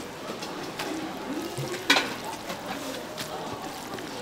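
Chopsticks stirring and lifting sauce-coated noodles in a stainless steel bowl, with scattered light clicks and one sharp clack about two seconds in, over steady background market noise and faint indistinct voices.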